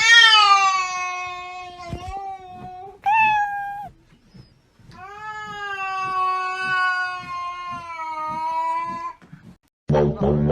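A cat yowling in long, drawn-out calls: a loud one at the start that sags slightly in pitch and breaks briefly near three seconds, then a second long, steady yowl from about five to nine seconds in.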